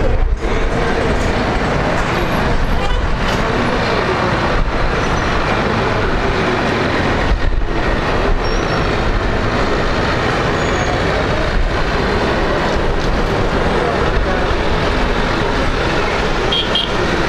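Rolls-Royce Trent 1000 engines of a Boeing 787-10 running at low thrust as the airliner taxis on the runway: a loud, steady jet rush with no change in pitch.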